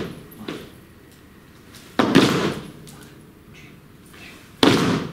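A group of people stomping in unison on a wooden studio floor: two heavy stomps about two and a half seconds apart, each ringing briefly in the room, recorded as a stomp track.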